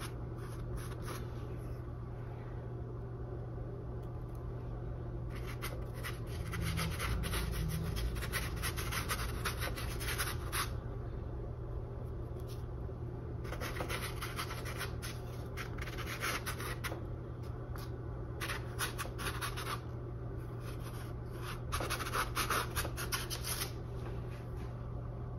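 Paintbrush scrubbing acrylic paint onto canvas and working it on a palette: a dry, scratchy brushing that comes in several spells of a few seconds each, over a steady low hum.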